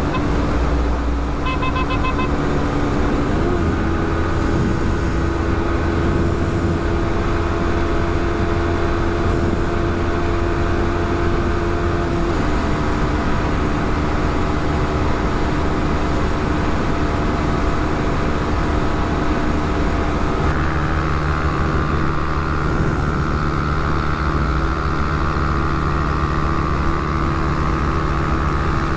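Motorcycle engine running at road speed, a steady drone whose pitch shifts about twelve seconds in and again about twenty seconds in.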